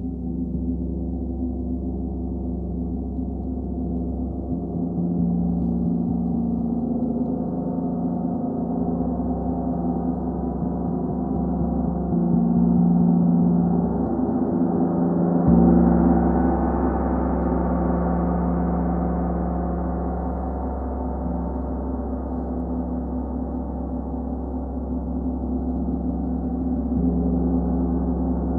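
36-inch Metatron gong played continuously with soft fleece-headed Olli Hess Moveline mallets: a sustained, humming wash of many overlapping tones. It swells, peaks with a stronger stroke about halfway through, eases off, then builds again near the end.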